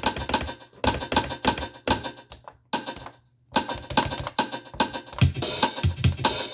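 Roland CR-1000 drum machine playing a busy pattern of electronic kick, snare and hi-hat hits. It breaks off briefly a little past halfway, then comes back in.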